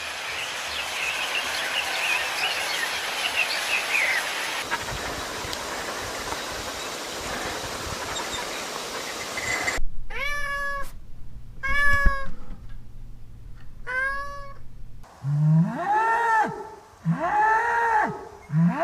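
A steady noisy hiss for about ten seconds, then a domestic cat meowing three times, then three loud honking calls from waterfowl near the end.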